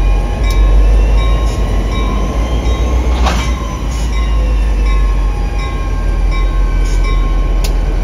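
NJ Transit F40PH-2CAT diesel locomotive running beside the train with a steady deep rumble, faint thin high squeals drifting in pitch over it. A single sharp clank comes about three seconds in.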